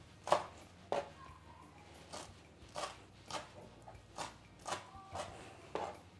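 Chef's knife chopping fresh parsley and coriander on a plastic cutting board: about ten sharp knocks of the blade striking the board, at an uneven pace.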